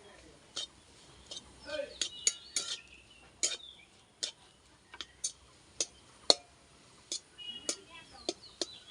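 A metal cooking utensil knocking and clinking against a pan while the spiced potato samosa filling is stirred. The sharp clinks come at an irregular pace of about one or two a second.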